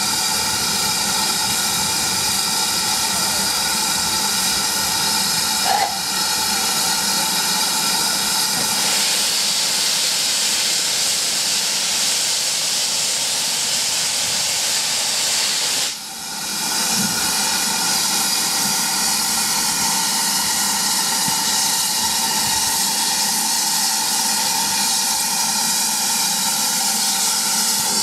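Steam locomotive, GWR small prairie tank engine No. 5526, standing and letting off steam: a loud, steady hiss with a steady whistling note in it, dipping briefly about two thirds of the way through.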